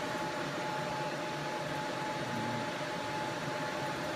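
Steady whirring hum of a fan or blower, with a faint steady high whine running through it.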